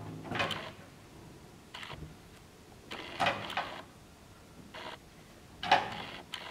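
Short bursts of scraping and rattling, about six, irregularly spaced, as a long line tied to a double bass lying on the stage is pulled and handled.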